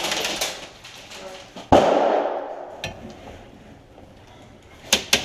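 A single loud bang about two seconds in, dying away over about a second in the room, with a few sharp clicks near the end.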